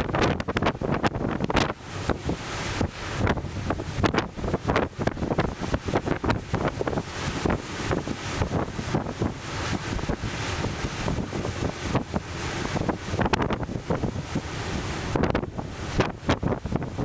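Strong, gusty wind buffeting the microphone in irregular blasts, over the wash of Atlantic surf.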